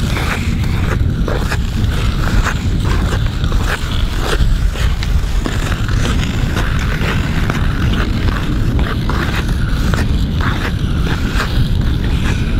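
Wind buffeting a close microphone with a constant low rumble, mixed with frequent short scrapes and rustles, like a nylon jacket brushing the mic.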